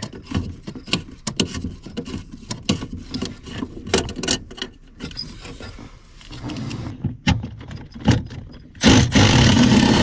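Scattered small clicks, knocks and rattles of hand work on parts under a car's dashboard, then, about nine seconds in, a cordless power tool starts running loud and steady on a bolt.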